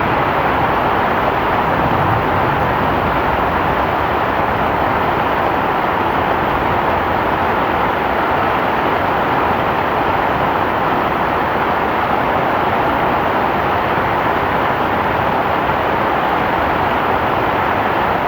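Heavy rain falling, a steady, unchanging rush of noise.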